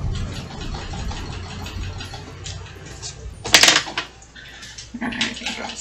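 Pen strokes scratching on sketchbook paper, with a sharp clack a little past halfway as one pen is set down and swapped for another.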